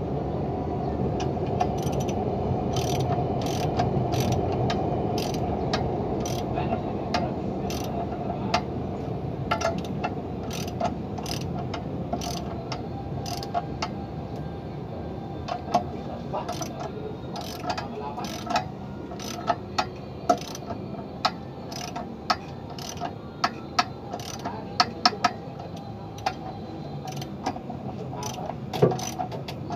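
Ratchet wrench clicking in short irregular runs as a socket is turned on the clutch pressure-plate bolts, the clicks growing louder and more frequent in the second half, over a steady low rumble.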